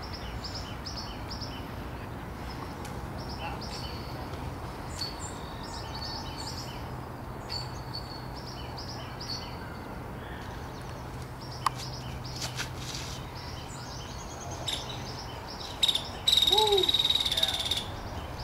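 Small birds chirping and singing over and over in the background. Near the end comes a loud, harsh burst that lasts about a second and a half.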